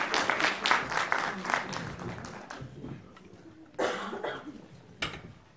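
Audience applauding in a concert hall, dying away about two and a half seconds in. About a second later come a short burst of noise and a sharp click.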